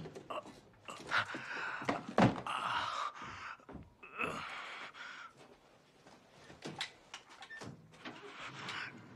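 A man gasping and groaning in pain through clenched teeth, in several breathy spells, with a heavy thud about two seconds in and a few lighter knocks.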